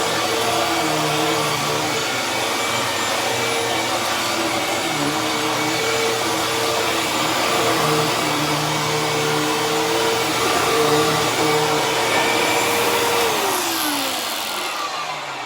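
Hoover Tempo bagless vacuum cleaner running steadily with its motor hum and rush of suction air. About 13 seconds in it is switched off and the motor winds down with a falling pitch.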